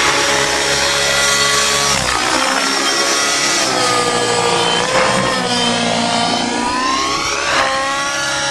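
Align T-Rex 700 radio-controlled helicopter flying aerobatics: a continuous motor-and-rotor whine that dips and rises in pitch again and again as the helicopter is thrown through manoeuvres, with a sudden drop about two seconds in.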